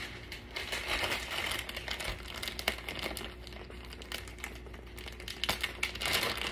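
Packaging crinkling unevenly as it is handled, with many small clicks.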